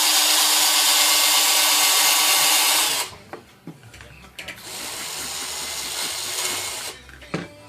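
Grooved rubber typewriter platen being sanded while a small motor spins it: a loud run of motor whir and abrasive hiss for about three seconds that stops suddenly, a few light clicks, then a quieter second run of sanding from about four and a half to seven seconds in. The sanding is grinding the deep grooves out of the worn platen rubber.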